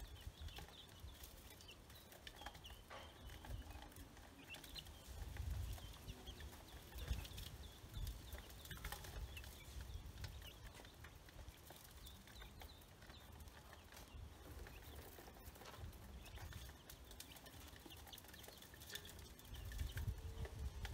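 Faint peeping of ducklings and chicks: short high cheeps scattered throughout, with scattered small clicks and a low rumble that swells a few times.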